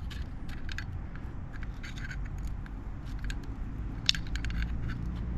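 Scattered light metallic clicks and scrapes of flathead screwdrivers prying between the brake pads of a motorcycle's front brake caliper to spread them apart. One sharper click comes about four seconds in.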